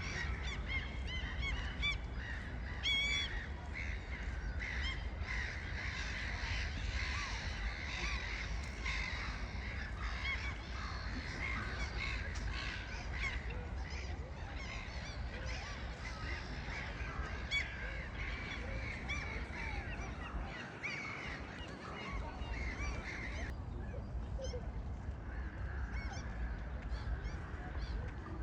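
A flock of birds calling loudly all at once, many short calls overlapping without a break, over a steady low rumble.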